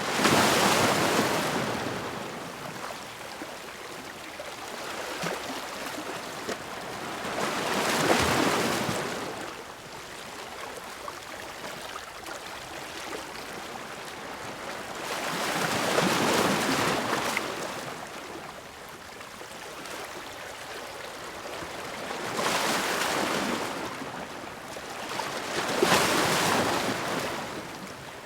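Ocean waves breaking on a shore: a steady wash of surf that swells and falls back, with five louder breakers over the stretch.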